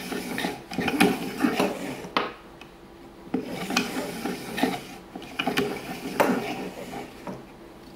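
Recoil pull-starter of a Rotax 503 engine, its pulley spun by hand on the hub after the pawl spring mechanism has been refitted. It gives a clicking, rattling run of metal-and-plastic clatter in several bursts, which thins out near the end.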